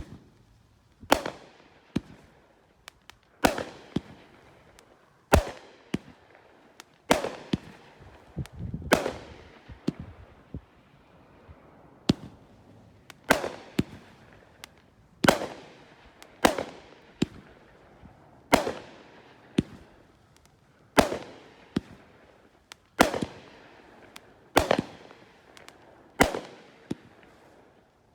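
The Angry Dragon consumer firework going off as a series of sharp bangs, roughly one a second at uneven spacing, each echoing away.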